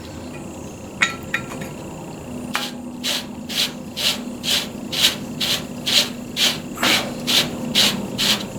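Propane adapter valve on a propane tank being pressed to purge it: a couple of clicks, then a regular run of short hissing puffs of gas, about two a second.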